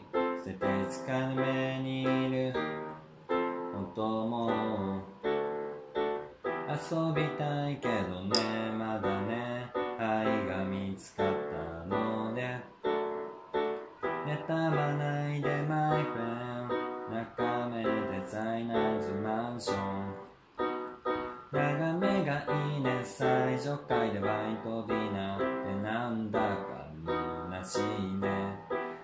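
Casio electronic keyboard played with both hands in a piano voice: block chords over a moving bass line with a melody on top, a pop song practised at a steady tempo.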